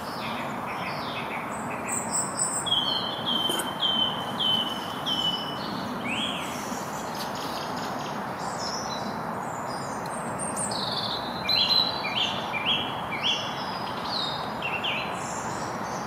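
Song thrush singing, repeating each short phrase several times over, with a European robin also singing, against a steady rush of distant road traffic.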